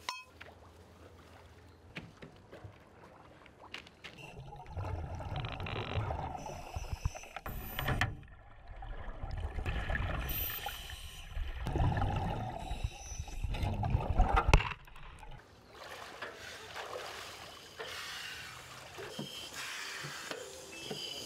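Underwater bubbling and rushing heard through a surface-supplied diving helmet, in several loud stretches of a few seconds each, then dropping to a quieter steady background about two-thirds of the way through.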